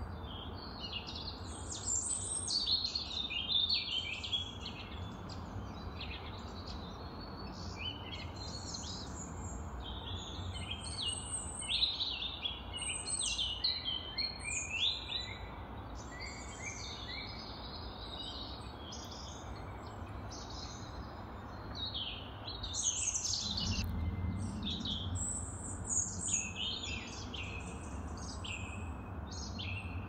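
Several birds singing and chirping almost without pause, with short, high, overlapping trills and calls, over a low steady rumble that swells briefly about three-quarters of the way through.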